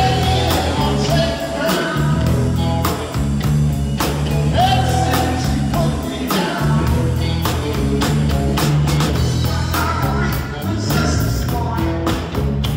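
Live rock band playing with singing over a steady drum beat, bass and guitar.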